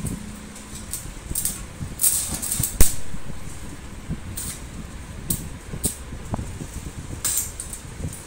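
Stick arc welding at a joint of a tubular metal chair frame: short crackling bursts as the electrode is struck and held briefly, several times, with one sharp click about three seconds in.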